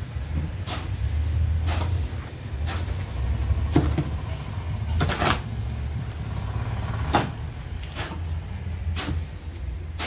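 Steel shovel scraping and digging into a heap of semi-dry sand-and-cement screed mix on a concrete floor, about one stroke a second, over a steady low rumble.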